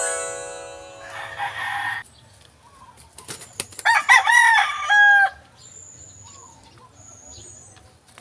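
Rooster crowing: a call at the start followed by a rush of flapping wings, then a second, louder crow about three to five seconds in.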